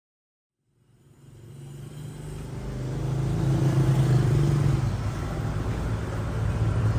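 Street traffic: motor vehicle engines running with a steady hum over road noise, fading in from silence about a second in.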